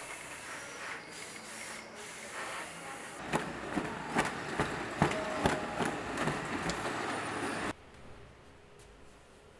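A dust cloth rubbing over a surface with a hissing swish, then the cloth shaken out at an open window, a quick run of sharp snapping flaps over street rumble, which stops abruptly about three-quarters of the way in, leaving a quiet room.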